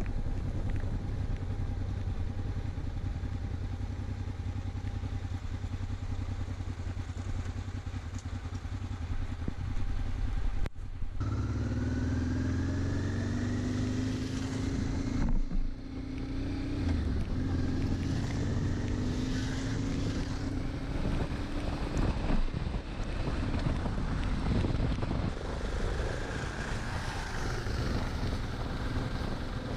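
Motorcycle engine running under way, with wind noise. The engine pitch rises several times as it accelerates, and the sound changes abruptly about 11 and 15 seconds in.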